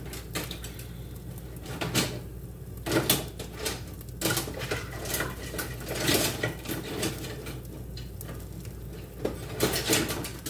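Kitchen utensils and dishes clinking and clattering off and on, a handful of separate knocks spread out, over a steady low hum.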